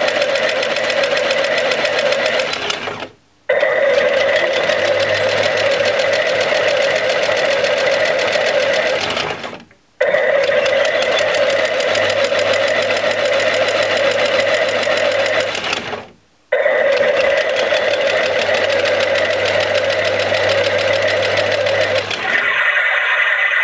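Toy mini drum washing machine's small battery-powered motor turning the drum through its wash cycle: a steady motor hum in four runs, each cut off by a brief silence as the drum switches between forward and reverse. It stops about a second before the end, with the wash finished.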